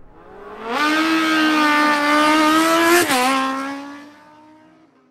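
Motorcycle engine held at high revs: a steady high note that creeps up, drops sharply about three seconds in, then fades away.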